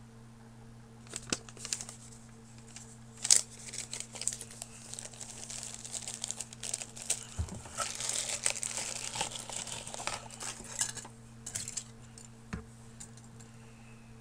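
Clear plastic packaging bag crinkling and rustling as it is handled and pulled open, busiest for several seconds in the middle, with a few sharp clicks and taps early on.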